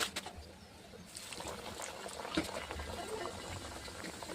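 Crackling sizzle of food frying in hot oil, starting about a second in and running on as a dense patter of small pops.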